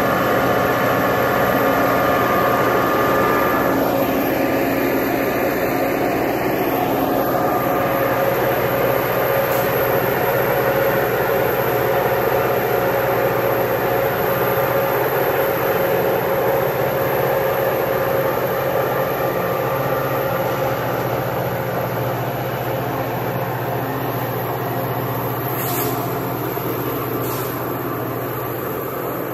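Caltrain EMD F40PH diesel-electric locomotive's engine running steadily as it pulls out and pushes its train away, the engine sound slowly fading.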